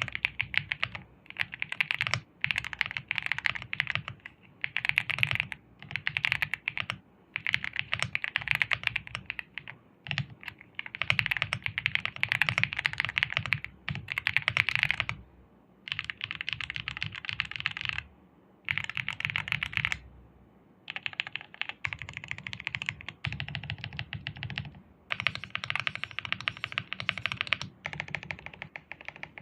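Typing on an Attack Shark X66 gasket-mount mechanical keyboard with Strawberry linear switches: quick runs of keystrokes in bursts of one to three seconds, separated by short pauses.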